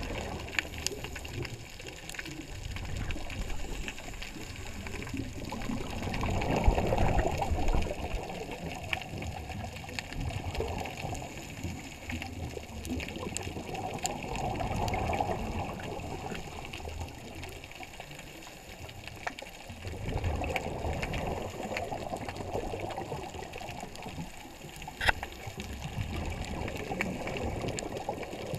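Scuba diver breathing through a regulator underwater: exhaled bubbles gurgle and rush out in a swell about every seven seconds, over a steady low underwater wash, with a sharp click near the end.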